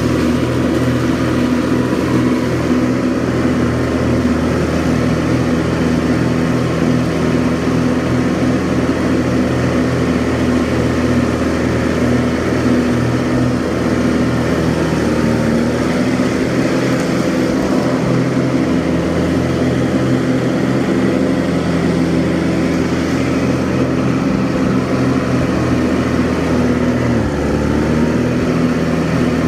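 Kubota G6200H diesel lawn tractor running steadily while mowing tall grass, its engine note dipping briefly twice.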